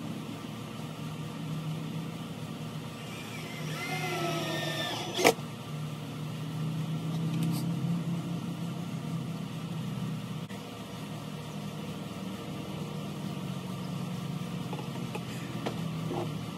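A cordless drill drives a screw into a plywood drawer box. Its motor whine sags in pitch under load about three seconds in and ends in a single sharp click a little after five seconds. A steady low hum runs underneath.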